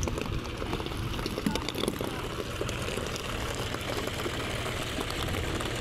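John Deere 5050 D tractor's three-cylinder diesel engine idling steadily.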